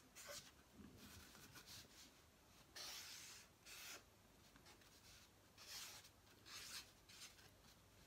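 Faint, scratchy strokes of a black marker pen drawing on paper: a series of short strokes with pauses between them.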